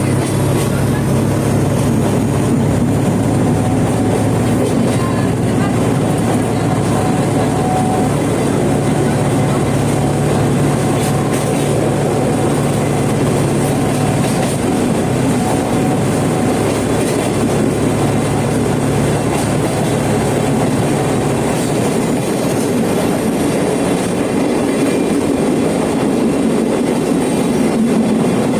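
Sagano Romantic Train running along the line, heard from inside the carriage: a loud, steady rumble and rattle of the wheels on the rails, with a low hum underneath.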